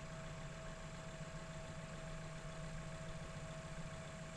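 JCB backhoe loader's diesel engine idling steadily, with a constant high tone running over the low engine beat.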